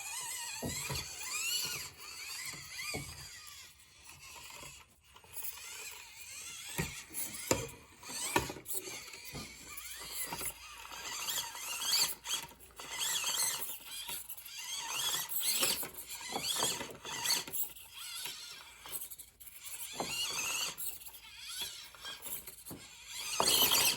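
Axial SCX24 micro RC crawler with a Barrage motor driving over obstacles: the small electric motor and gears whine, rising and falling in pitch as the throttle is worked, with scattered clicks and knocks from the truck on the course.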